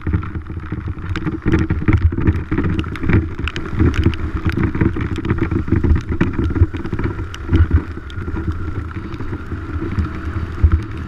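Dirt bike engine running with frequent knocks and rattles over it.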